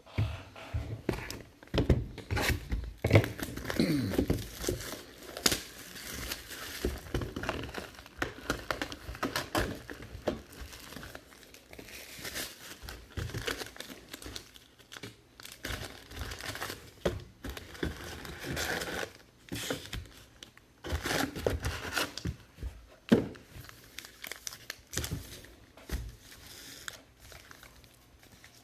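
Wrappers of Allen & Ginter baseball card packs being torn open and crinkled by hand, an irregular crackling and rustling with sharper tearing sounds now and then.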